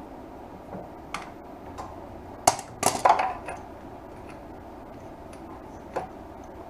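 Scattered metallic clicks and clinks of hand tools and parts as the ignition coils are taken off a Honda GL1500 Gold Wing, with the loudest cluster of knocks about two and a half to three seconds in.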